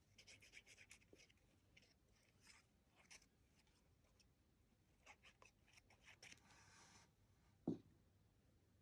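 Faint paper handling: small rustles and clicks as a torn strip of patterned cardstock is held and glued, with a short sliding rustle and then a soft thump near the end as the strip is pressed down onto a card panel.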